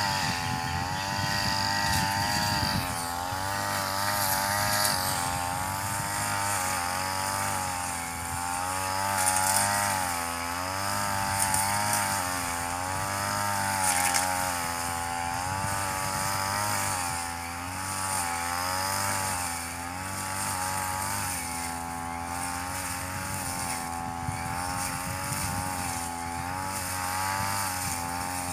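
Backpack brush cutter's two-stroke engine running at high revs while its blade cuts tall grass, the pitch wavering up and down every second or two as the load changes.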